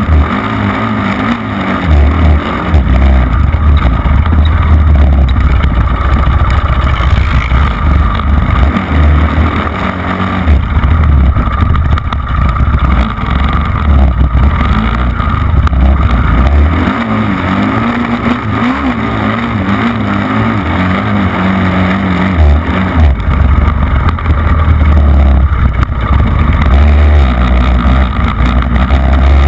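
Off-road vehicle engine running hard on a dirt track, revving up and down without a break, with wind buffeting the microphone.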